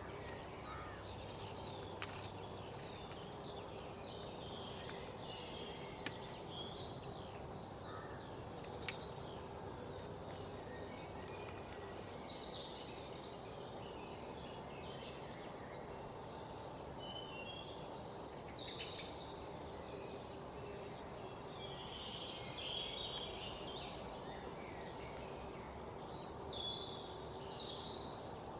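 Outdoor rural ambience: a high, steady insect trill of crickets for the first dozen seconds, then scattered bird chirps, over a faint background hiss with a few light clicks.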